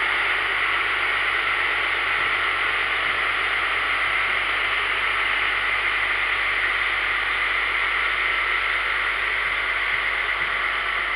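Rail mowing machine running as it backs away down the track: a steady hissing drone that eases off slightly toward the end.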